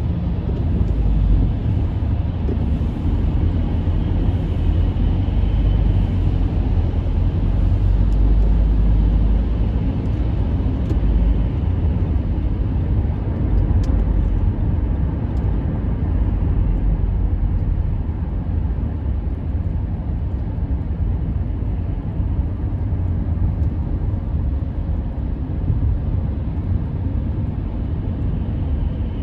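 Steady low rumble of a car being driven, heard from inside the cabin: engine and road noise, easing off a little about halfway through.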